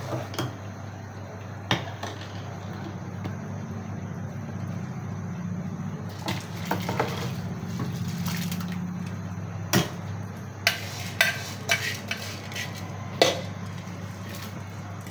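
Rice is poured from a bowl into a steel pot of boiling water, followed by several sharp clinks of a steel ladle and bowl against the pot. A steady low hum runs underneath.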